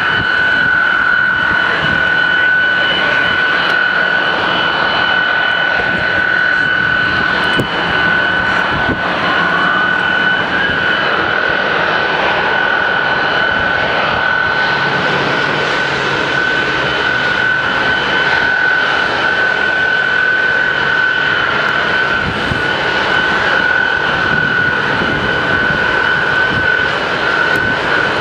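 Tupolev Tu-134A-3's Soloviev D-30 low-bypass turbofan engines running steadily, a loud roar with a steady high whine over it.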